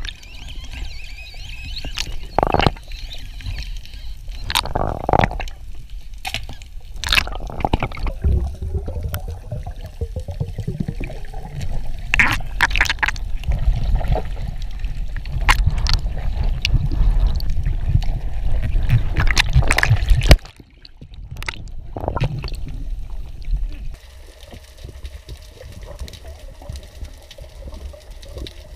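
Underwater sound picked up by a camera in its housing: a steady low rumble of moving water with scattered sharp clicks and knocks. The sound drops suddenly about two-thirds of the way through and turns quieter and steadier near the end.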